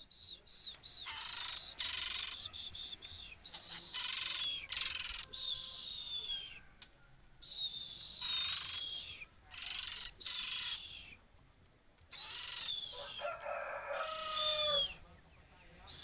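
Young male oriental magpie-robin (kacer) singing in a cage: a run of harsh, scratchy phrases mixed with short whistled notes, in bursts of about a second with brief pauses. The owner says this song is not yet that of a mature bird.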